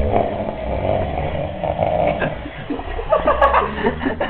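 A person snoring: a rasping snore through the first two seconds, then choppier, broken breathing noise about three seconds in.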